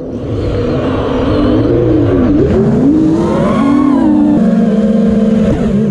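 Armattan Rooster FPV quadcopter's motors whining, the pitch rising and falling with throttle, settling into a steady lower hum near the end, then cutting off abruptly as the motors stop.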